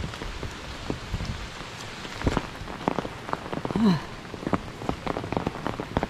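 Steady rain falling, with many individual drops striking close by at irregular intervals. A short pitched sound stands out just before four seconds in.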